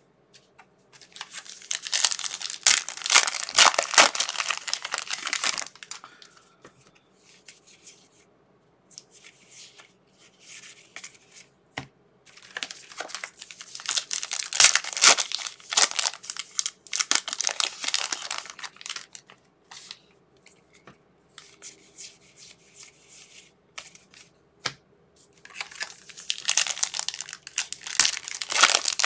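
Foil trading card pack wrappers being torn open and crumpled, in three long crinkly bursts with quieter rustling between.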